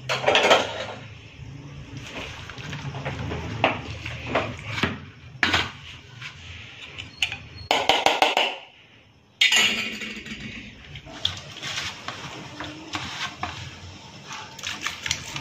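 A metal spoon scraping and clinking against a steel bowl while spiced marinade paste is smeared by hand over a mutton leg on a steel plate: irregular clatter and wet smearing, breaking off briefly about nine seconds in.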